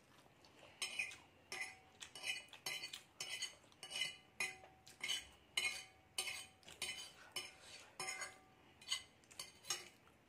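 Metal fork clinking and scraping against a glass plate while gathering noodles: a run of sharp ringing taps, about two a second, starting about a second in.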